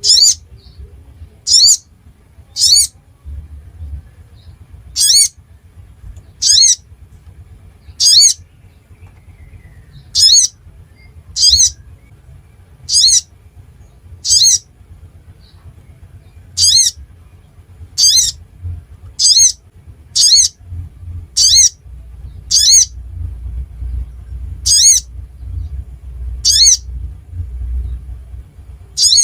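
Sogon (sogok ontong) bird giving short, sharp, high-pitched calls, repeated about once a second, with a faint low rumble underneath. This is a lure call used to provoke other sogon into singing.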